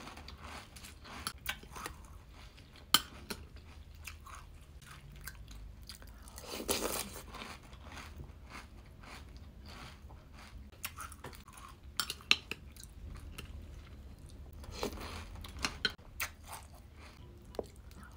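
Close-up chewing and crunching of sugary flake cereal in milk, with scattered sharp clicks of a metal spoon against a ceramic bowl.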